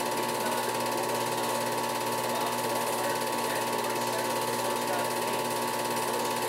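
Film projector running: its mechanism makes a rapid, even clatter over a steady tone, with no change in level.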